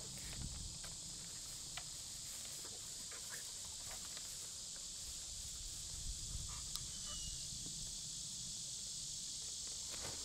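Steady high-pitched chorus of insects, with a few faint scattered ticks.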